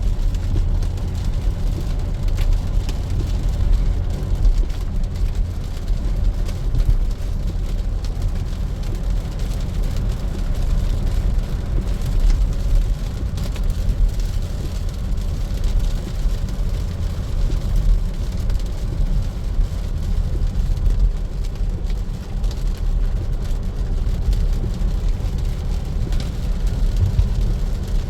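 Steady low rumble of tyre and road noise from a Tesla Model Y driving on a wet road in the rain.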